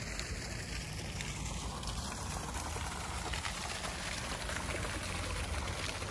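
Fountain water splashing steadily into its basin: a tiered fountain's jet falling back as a continuous patter and pour.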